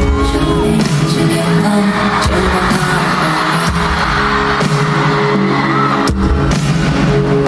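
Instrumental intro of a live pop song: sustained chords with heavy percussion hits at the start and again about six seconds in.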